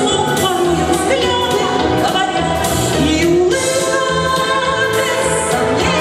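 A woman singing a cheerful song into a handheld microphone over instrumental accompaniment with a steady, pulsing bass line.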